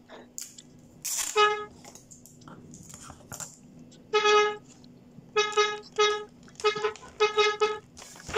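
A torotot toy horn blown in a string of short toots: one longer blast about a second in, then a run of quick toots, several in pairs.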